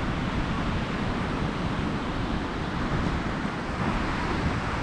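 Ocean surf washing on a sandy beach as a steady rushing noise, with wind rumbling against the microphone.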